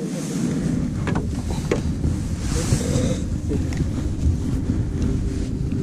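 A boat's motor running steadily with a low hum, with wind rumbling on the microphone and a brief rush of hiss about halfway through.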